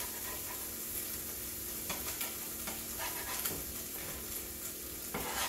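French toast and Canadian bacon sizzling in a frying pan, with a steady hiss. A slotted spatula scrapes and taps against the pan a few times as the food is moved and turned.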